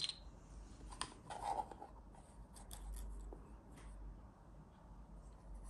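Hands settling a calculator watch and its strap into a presentation box: faint scattered clicks, with a short rubbing sound about one and a half seconds in.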